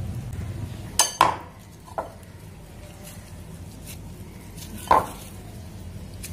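A few light clinks of kitchenware: two close together about a second in, one at two seconds and one near five seconds, over a low steady hum.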